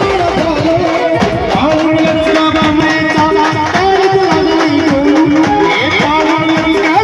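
Loud live band music: a bending, wavering melody line over fast, steady drumming.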